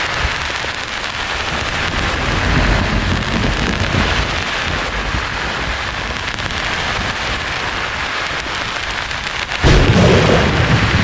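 Steady white-noise hiss with thunder rumbling low underneath, and a sudden loud thunderclap about nine and a half seconds in.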